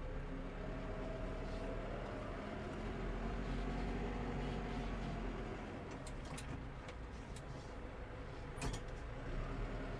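New Holland T5.140 tractor engine running steadily, heard from inside the closed cab, with a faint whine that rises and falls in the first half. A few sharp clicks and a knock come in the second half.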